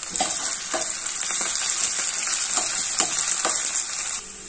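Shallots, curry leaves and chillies sizzling in hot coconut oil in a small aluminium kadai for a chutney tempering. A metal spoon stirring the pan makes several light clicks, and the sizzle cuts off suddenly near the end.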